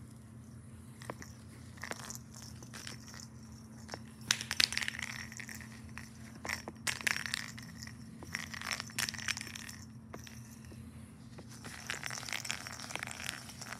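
Rustling and scratching of a tabby cat clawing and wrestling a ball of yarn on a carpet, coming in irregular bursts with scattered clicks, over a low steady hum.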